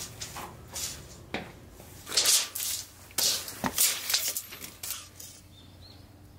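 Scraping and rustling handling noises as a steel tape measure is pulled out and laid across gravelly dirt beside a concrete edge, with a few short bursts and a soft knock in the middle.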